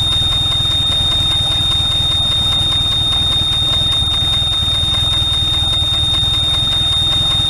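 Yamaha F60 four-stroke outboard idling with a low, even rumble while its overheat warning buzzer sounds one continuous high-pitched tone. The alarm marks the coolant temperature passing 90 °C at idle: the engine is overheating, which the mechanic puts down to a faulty water pump, a thermostat that won't open, or a blocked cooling passage.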